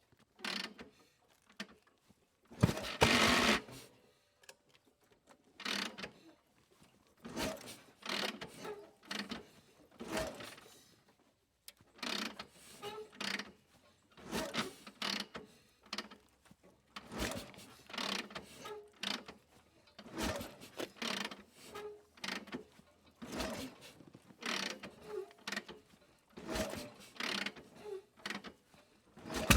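Gear shift lever being worked through the gears over and over: irregular mechanical clicks and clunks in small clusters with short pauses between them. The loudest is a rattling clunk about three seconds in.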